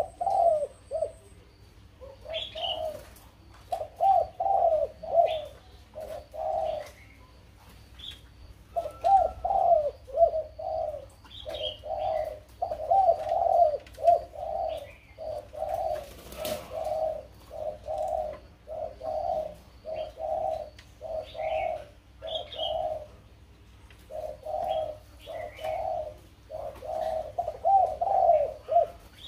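Black-throated laughingthrush singing: a long, loud run of low, fluty repeated notes, about two a second, in phrases broken by short pauses. Fainter, higher chirps come in here and there.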